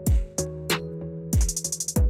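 Background music: a drum-machine beat with deep kick drums that drop in pitch and sharp high hits, including a quick roll, over held chords.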